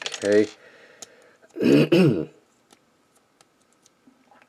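A man's short wordless vocal sound about two seconds in, after a spoken 'okay', with a few faint, sharp plastic clicks as a small plastic transforming robot figure is handled.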